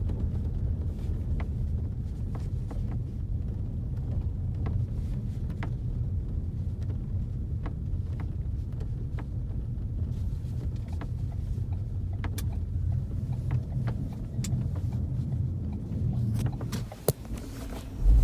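Cabin of a moving 2016 Ford Focus RS: a steady low road and engine rumble, with short creaks and clicks at irregular moments, a few louder ones near the end. The owner suspects the creaks come from the headlining.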